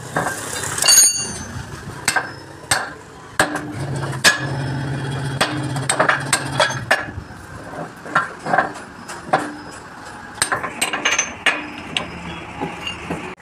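Irregular metal clanks and knocks as steel tools, sleeves and a truck lift-axle arm are handled and tapped on a hydraulic press's steel table, with a low hum for a few seconds near the middle.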